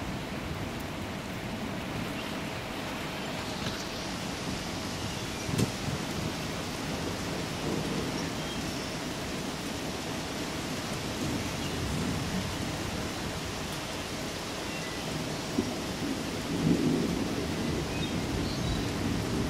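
Steady rain falling on a lawn and road in a thunderstorm, with low rumbles of thunder, the loudest near the end, and a short sharp crack about six seconds in.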